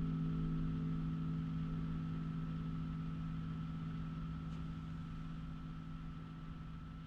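The last low notes of a 26-string wire-strung harp with brass strings ringing on after being played, a few steady tones slowly dying away.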